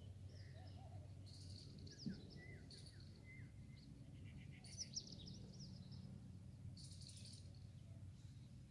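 Faint outdoor ambience of small birds chirping and calling, with short sweeping chirps and a few brief buzzy trills scattered throughout, over a low steady hum.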